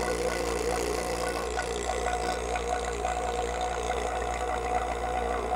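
Two-stage J/B vacuum pump running steadily with an even hum, pulling a deep vacuum down to a couple of hundred microns.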